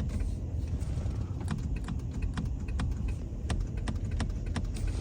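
Ford Kuga's indicators working, the flasher ticking in a run of sharp clicks about twice a second over a low steady hum, as the newly fitted indicator stalk is tested.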